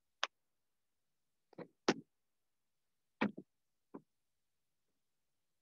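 A handful of short knocks and thuds, about six spread over four seconds and irregularly spaced, as a person gets up and walks off across a wooden floor. Footfalls and bumps, with nothing in between.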